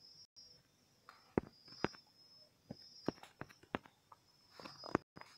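Soft, irregular taps of a fingertip on a smartphone touchscreen while typing on the on-screen keyboard, about eight short clicks. A faint high trill comes and goes behind them.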